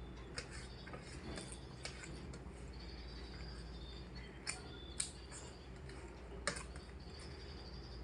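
Eating sounds: scattered sharp clicks and taps of food being eaten off a plate, the loudest about five and six and a half seconds in, over a faint steady chirping background.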